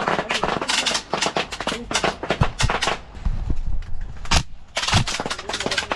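Airsoft guns firing: a rapid string of sharp shots and BB hits for about three seconds, then a few single shots.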